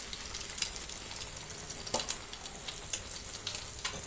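Egg-and-milk-soaked bread slices sizzling in melted fat on a hot dosa tawa: a steady fine crackle, with a few light clicks at the start, about two seconds in and near the end.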